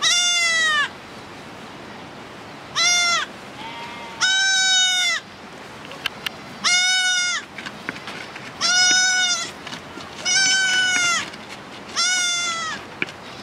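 A goat bleating over and over: seven high-pitched bleats, each under a second long, coming about every one and a half to two seconds.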